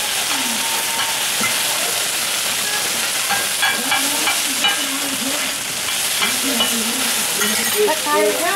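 Oyster omelette (hoy tod) sizzling in hot oil on a large flat iron pan, with a metal spatula repeatedly scraping and chopping against the pan. The frying hiss is steady, and the spatula clicks come in short clusters.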